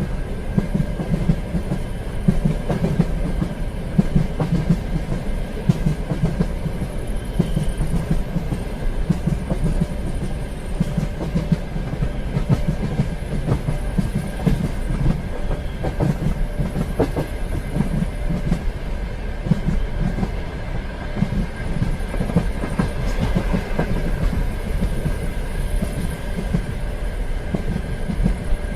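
Train running along the track, heard as a steady low rumble with the irregular clickety-clack of wheels over rail joints and a faint steady whine.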